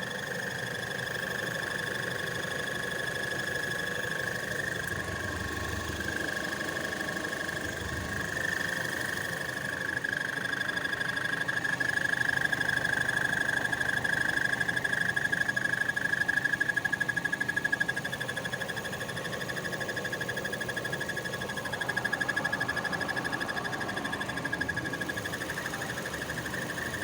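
Lada Vesta clutch release bearing whistling: a steady high-pitched whistle over the engine running, louder for several seconds in the middle, the sign of a worn release bearing.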